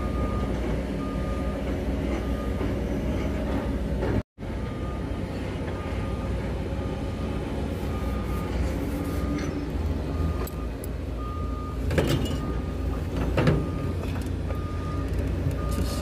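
Steady low machinery rumble with a short high beep repeating more than once a second, and two sharp knocks near the end.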